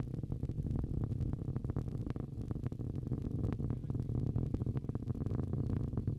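Falcon 9 rocket's first stage climbing under its nine Merlin engines: a steady low rumble shot through with dense, irregular crackling.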